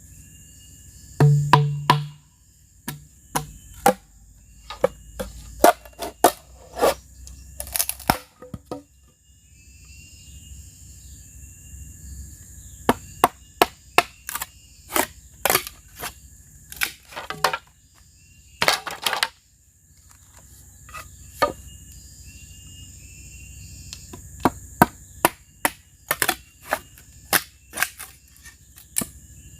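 Irregular sharp strikes of a tool on bamboo, coming in bursts with short pauses, as bamboo is cut and worked for a bench.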